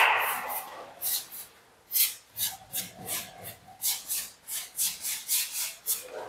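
A paintbrush scrubbing sandy decorative paint onto a wall in short back-and-forth strokes, about three scrapes a second, with a brief pause about a second and a half in.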